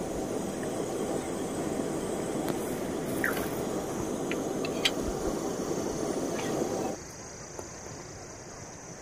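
Steady rushing roar of a gas burner on a small LPG cylinder heating a pan, with a few light clicks and knocks; the roar drops sharply to a quieter hiss about seven seconds in.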